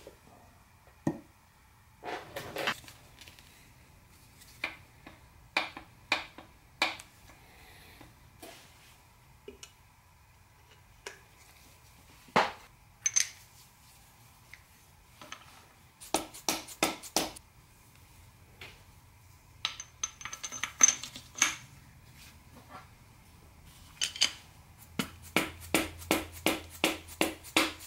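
Metal hand tools knocking, tapping and clinking against a Subaru engine block as a piston and its wrist pin are fitted: scattered sharp knocks, a short metallic ring about two-thirds of the way through, and a quick run of taps near the end.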